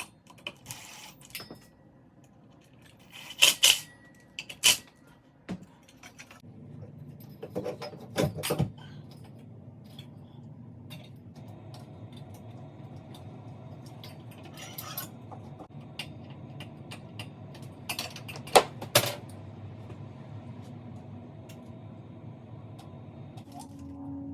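Scattered clinks and knocks of small metal hardware and tools being handled, during ceiling fan installation. A steady low hum runs under them from about six seconds in.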